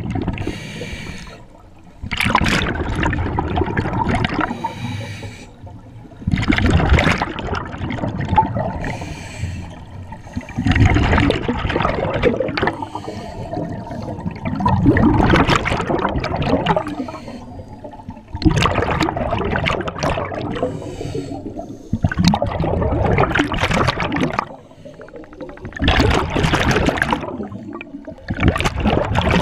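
Scuba diver breathing through a regulator underwater: a faint hiss on each inhale, then a loud rush of exhaled bubbles, about eight breaths spaced roughly four seconds apart.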